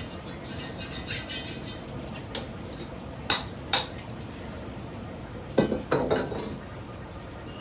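A metal ladle clinking and clanking against pots and a wok: two sharp clinks a little under halfway through, then two heavier clanks with a short ring about two seconds later, over a steady kitchen hum.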